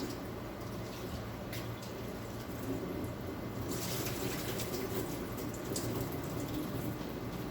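Tamarind rasam heating in a clay pot on the stove: a steady low hiss with a few faint pops and crackles of liquid coming up toward a simmer.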